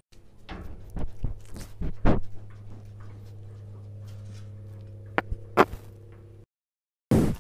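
Goat chewing hay close to a miniature microphone, a run of crisp crunching clicks. A low steady hum runs underneath from about two seconds in, and the sound cuts off suddenly, with loud munching starting again just before the end.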